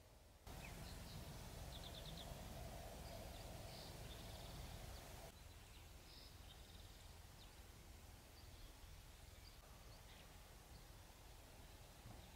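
Quiet outdoor ambience in a pine forest: a faint even hiss with a few brief, distant bird chirps. The background level jumps up about half a second in and drops back around five seconds.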